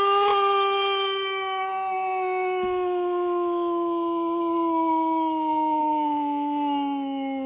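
One long howl, held for about nine seconds and sliding slowly down in pitch, wavering just as it ends.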